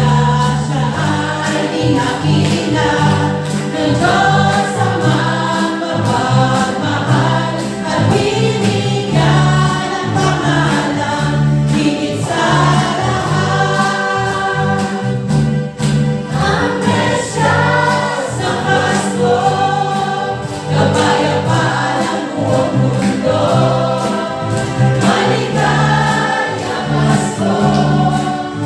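A choir singing a song with instrumental backing and a steady beat.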